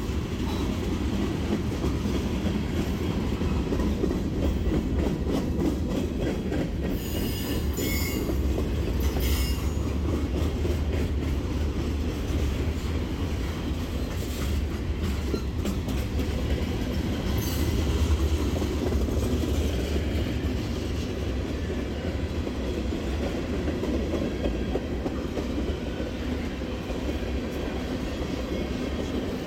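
Freight train cars rolling past close by: a steady low rumble of wheels on rail with frequent clicks over the rail joints. Brief high-pitched wheel squeals come about seven to ten seconds in, and fainter ones twice more a little later.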